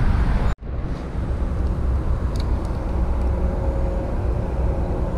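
Steady low rumble of road traffic. The sound cuts out for an instant about half a second in, then resumes, with a faint steady hum in the middle.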